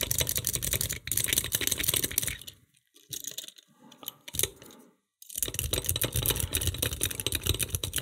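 Rapid metallic clicking and scraping of a lock pick rake being jiggled in the keyway of a 1980s Assa wafer-lock bike lock, held under tension. The clicking thins out for a couple of seconds in the middle, then picks up again.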